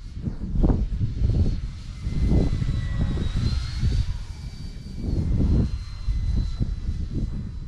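High whine of an E-flite Turbo Timber Evo RC plane's electric motor and propeller as it flies a close pass, the pitch climbing about three seconds in and dropping near five seconds. Loud gusts of wind buffet the microphone throughout.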